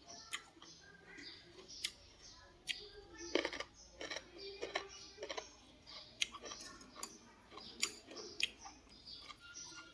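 Eating sounds: irregular light clicks and knocks of utensils against a bowl, with chewing, and a louder cluster of knocks about three and a half seconds in.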